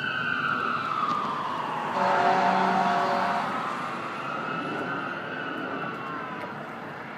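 Rescue ambulance's siren in a slow wail, pitch sliding down then up and down again, fading as the vehicle pulls away. About two seconds in, a loud steady horn blast lasts roughly a second and a half.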